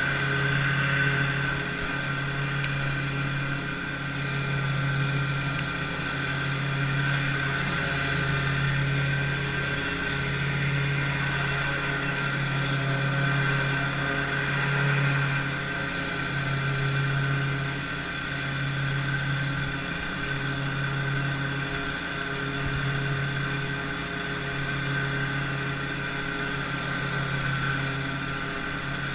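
Lawn mower engine running steadily, its low hum swelling and fading about every two seconds.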